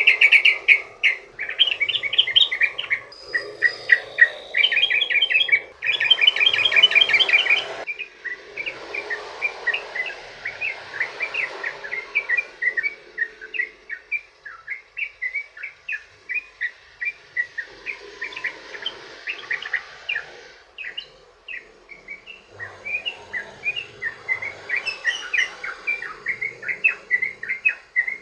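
Yellow-vented bulbul (trucukan) singing a long, fast string of short chirping notes, repeated over and over, loudest and densest in the first several seconds.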